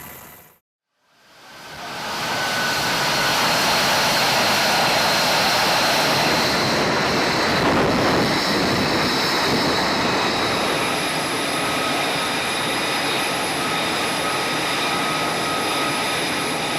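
Jet aircraft engine running loud and steady: a dense rushing noise with high whining tones held over it. It fades in after a brief silence about a second in.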